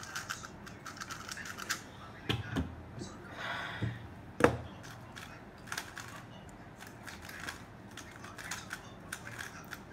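Scattered small plastic clicks and taps from a 3x3 speedcube and a Stackmat timer being handled on a desk, with one sharp knock about four and a half seconds in.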